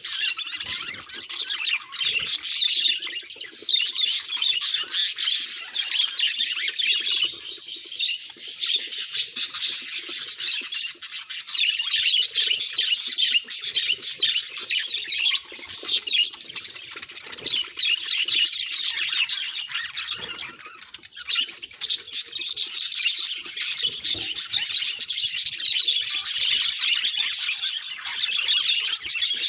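Budgerigar chatter: a continuous stream of fast chirps, warbles and squawks, dipping briefly a few times.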